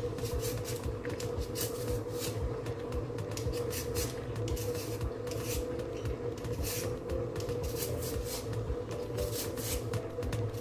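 Plastic Y-peeler scraping the skin off a raw potato in repeated short strokes, about one or two a second, over a steady low hum.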